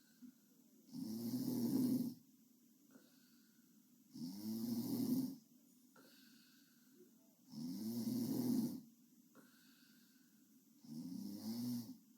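A sleeping girl snoring open-mouthed: four loud, rattling snores, one about every three and a half seconds. A faint thin whistle sounds in the quiet breath between them.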